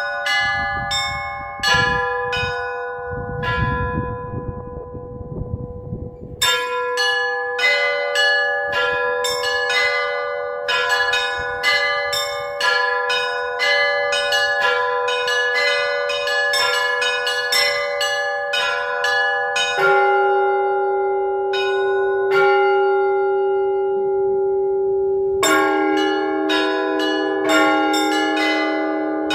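Orthodox church bells rung by hand in the tower: rapid strikes on the small bells over ringing middle bells. The quick strikes pause for a few seconds near the start, and lower bells come in about twenty and again about twenty-five seconds in.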